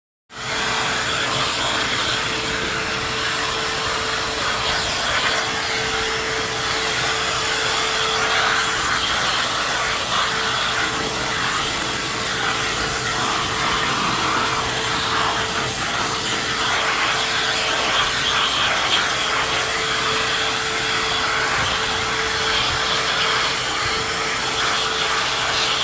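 Vacuum cleaner running steadily with a constant motor whine and rushing suction, its nozzle rubbing over the body of another vacuum cleaner as it cleans it.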